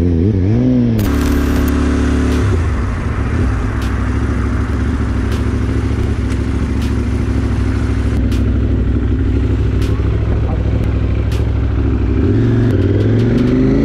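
Motorcycle engine running steadily at low speed in traffic under a steady rushing noise, with scattered light clicks; near the end the engine revs up, rising in pitch.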